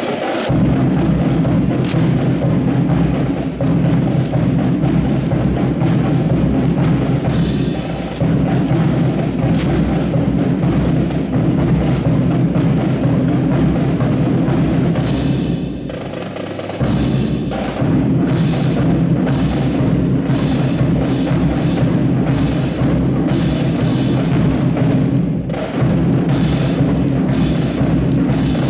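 Loud drum-heavy music, dipping briefly about sixteen seconds in.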